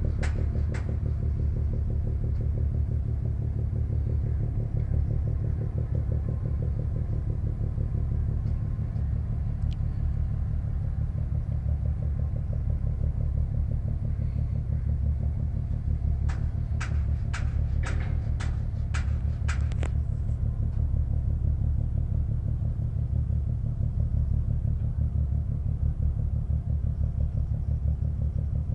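An engine running steadily with a rapid low throb. About two-thirds of the way in, a quick run of about seven sharp clicks.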